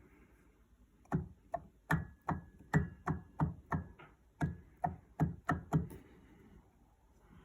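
A Rotax Max 125 kart engine knocking: about fourteen sharp knocks, roughly three a second, starting about a second in and stopping near six seconds. The cause of the knock is unexplained.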